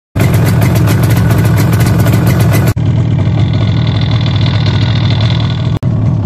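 Yamaha RD250C air-cooled two-stroke twin running, heard as a series of short clips joined by abrupt cuts. First the engine runs just after its first start following a top-end rebuild. After the cut about three seconds in, a duller, more muffled clip has the engine idling before the rebuild.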